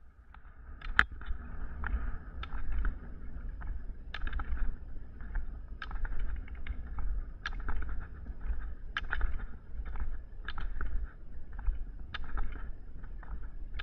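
Rollerskiing on asphalt: ski pole tips click against the pavement in a steady rhythm, about one plant every second or second and a half, over the hiss of the rolling wheels and a steady low rumble.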